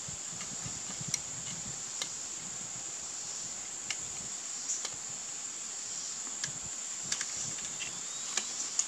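Insects buzzing steadily at a high pitch, with a scattering of small sharp clicks from a metal pick tool working at an air pistol's brass CO2 fitting while a replacement O-ring is seated in it.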